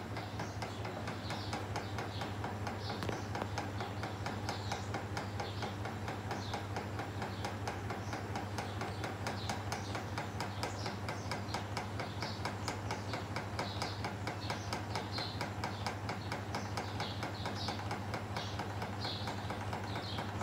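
Rusted stainless-steel ceiling fan running in reverse: a steady motor hum with a fast, continuous clicking rattle and short high squeaks repeating every second or so, as the wobbling fan knocks about in its downrod ball socket.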